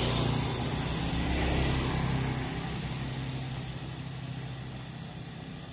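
Motorcycle engine running, loudest about a second and a half in and then slowly fading as it moves off.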